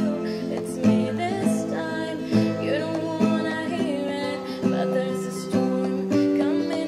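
Acoustic guitar song with a voice singing over the guitar.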